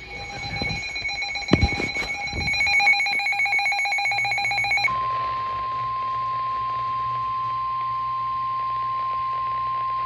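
Handheld NOAA weather radio sounding a Tornado Warning: a rapidly pulsing electronic alarm beep for about five seconds, with a low thump about a second and a half in. It then switches to the steady single-pitch Warning Alarm Tone that comes before the spoken warning.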